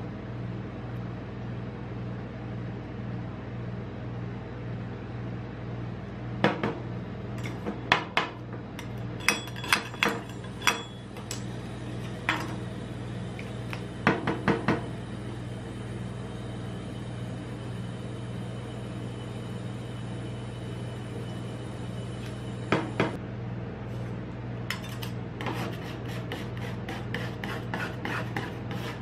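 Steady low hum from the rolled-ice-cream machine's cold plate, with scattered sharp knocks and clinks of the glass soda bottle being handled over the steel plate. Near the end, rapid scraping as a metal spatula chops the freezing mixture on the plate.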